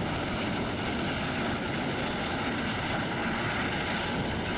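Jet engines of a taxiing Boeing 737 airliner, a steady rushing noise with a strong high hiss over it.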